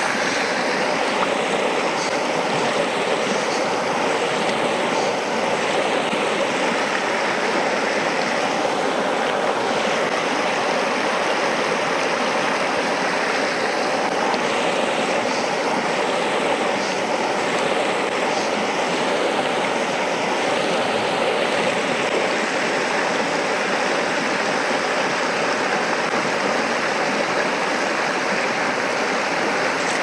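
Shallow, rocky mountain stream flowing steadily over stones, close by and continuous.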